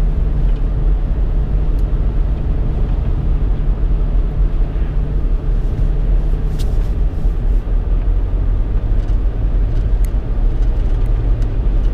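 Steady road and engine noise inside a moving car's cabin, an even low rumble with a few faint ticks.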